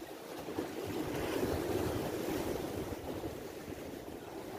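Sea waves surging and breaking against the boulders of a rock breakwater, the wash swelling about a second in and easing slightly toward the end.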